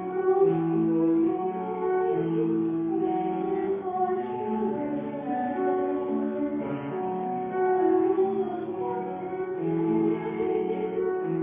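A girl singing a solo, holding long notes of a slow melody that steps from note to note.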